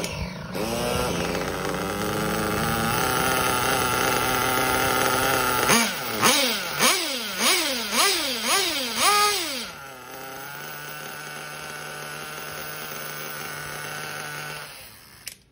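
Kyosho KE21 .21 nitro two-stroke engine in an RC buggy running fast, then revved in a run of quick throttle blips, about two a second, each rising and falling in pitch. It then settles to a lower steady idle and cuts off suddenly near the end, while its carburettor is being set.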